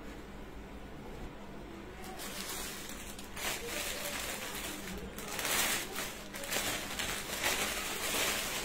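Rustling of a dress being handled and unfolded, in uneven waves that start about two seconds in and grow louder toward the end.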